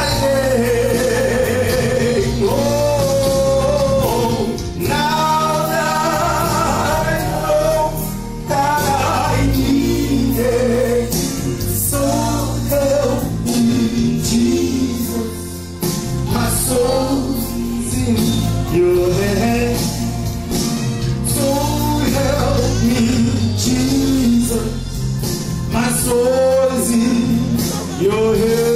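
A man singing a solo song into a microphone over a sustained instrumental accompaniment, amplified through a sound system.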